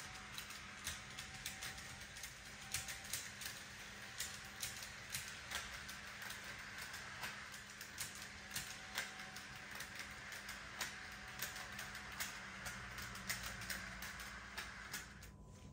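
Walthers Trainline model train running on its track, its small motor whirring steadily while the wheels click irregularly over the rail joints. The whirring stops abruptly near the end.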